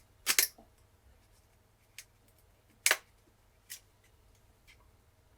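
A few sharp, short clicks as the smashed glass screen of a smartphone is prised off: a quick double click near the start, then single clicks about two, three and nearly four seconds in, the one around three seconds the loudest.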